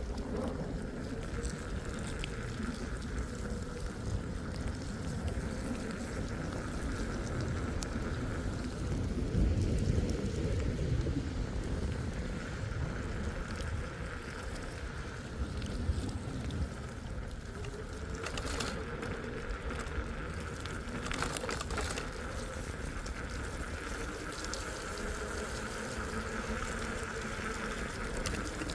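Steady rain, with a low rumble and a steady high hum under it.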